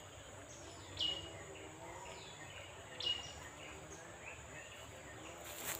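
A bird calling outdoors with a short, sharp whistle that slides down in pitch, loudest twice about two seconds apart with fainter calls between, over a steady high insect hum. A brief noise sounds near the end.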